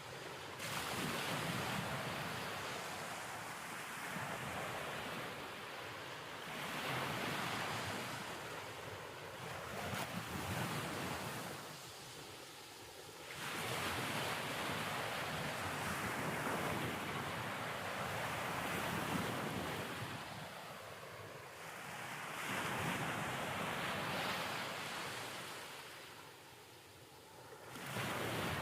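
Waves breaking: a rushing noise that swells and fades every few seconds.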